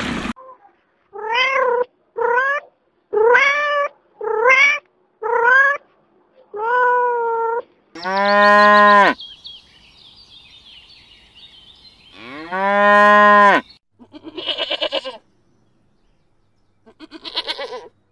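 A kitten meowing six times in short calls that rise and fall, then a cow mooing twice in long, deep calls, then a young goat bleating twice in shorter quavering calls near the end.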